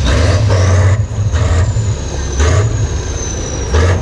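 Heavy diesel engine of a Tatra trial truck revving hard under load as it tries to climb out of a mud pit, its note surging up and down several times. A thin high whine slowly falls in pitch through most of it.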